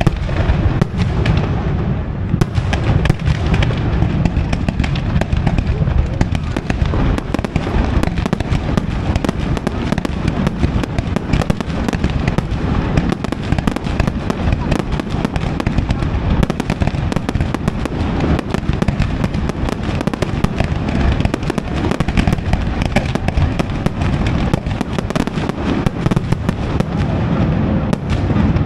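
Fireworks display: a loud, dense, unbroken barrage of bangs and crackling shells.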